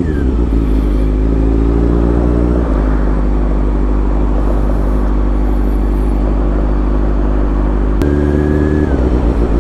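Honda CBR600 F4i sport bike's inline-four engine running at low revs in slow traffic. The engine note changes twice, about two and a half seconds in and again near the end.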